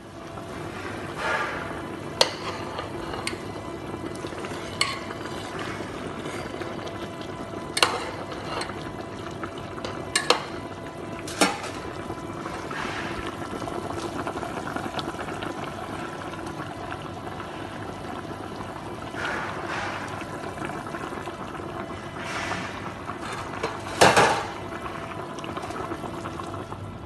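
A pot of salmon soup boiling hard on the stove: a steady bubbling hiss with a low hum underneath and a few sharp clicks and pops, the loudest near the end.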